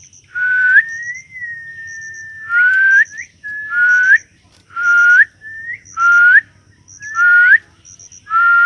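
A whistling bird giving clear rising whistles about once a second, alternating with softer, flatter whistled notes, with quick high chirps in threes in between.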